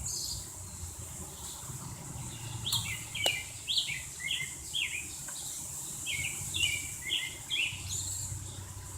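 Small birds chirping in quick series of short notes, with one sharp click about three seconds in, over a steady low hum.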